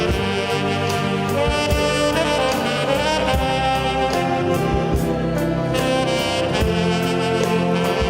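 Saxophone orchestra playing, with a tenor saxophone carrying the melody over sustained ensemble chords and drum beats keeping time.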